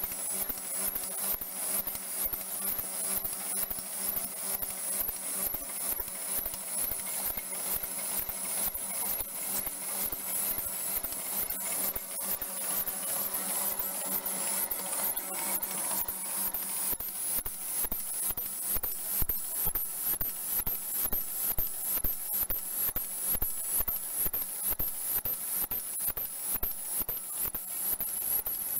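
Ball lollipop double-twist wrapping machine running, its mechanism cycling in a fast, even rhythm over a steady hum.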